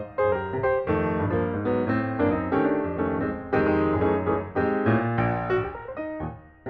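Background piano music: many quick notes and chords over a steady bass line.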